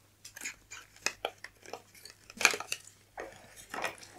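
A small lipstick box being handled and opened by hand: a scattered string of light clicks, taps and rustles, the loudest about halfway through and again near the end.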